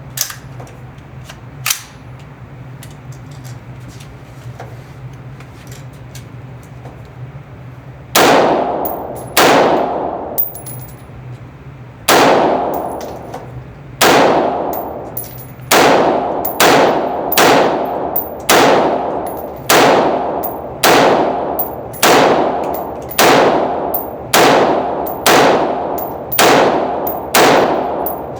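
Ruger AR-556 rifle firing 5.56 rounds in semi-automatic, about twenty single shots beginning some eight seconds in, roughly one a second at first and then quicker, each shot ringing and echoing off the walls of an indoor range. Before the shooting there is only a low steady hum and a couple of small clicks.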